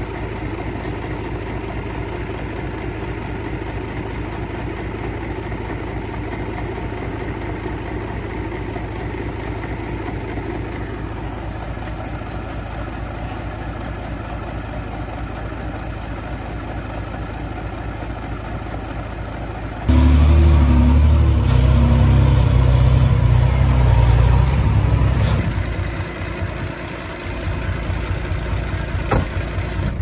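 Diesel engines of heavy earthmoving machines, a bulldozer and dump trucks, running steadily. About two-thirds of the way through the sound suddenly becomes much louder and deeper for about five seconds, as if under load or close by, then eases back to a steady running sound. There are a couple of sharp knocks near the end.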